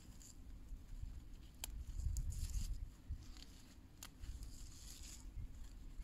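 Faint rustling of leaves and a few sharp snaps as wild sea beet tops are picked by hand, over a low rumble on the microphone.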